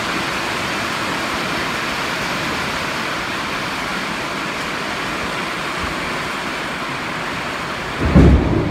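Heavy rain pouring steadily in a thunderstorm, a loud even hiss, with a sudden loud low rumble breaking in near the end.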